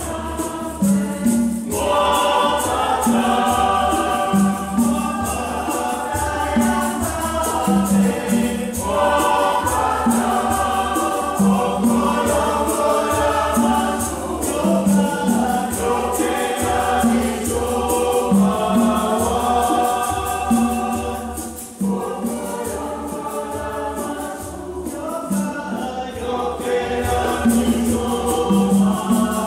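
Mixed choir singing a gospel song in parts, with conga-style hand drums keeping a steady beat underneath.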